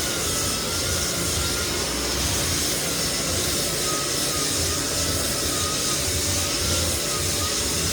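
Lagler Flip floor sander running steadily, with a faint wavering whine over its motor and dust-fan noise.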